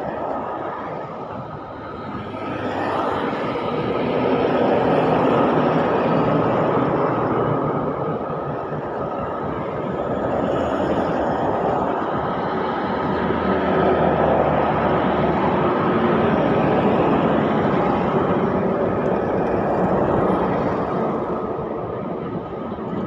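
Highway traffic passing close by: heavy diesel trucks and a coach bus going past one after another, their engine and tyre noise swelling and fading several times.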